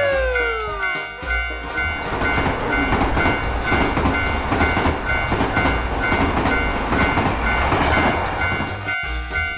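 Railroad crossing bell ringing in a steady two-tone pattern about twice a second while a train passes over the crossing, its noise building to its loudest near the end. In the first second, the falling pitch of a passing emergency siren fades out.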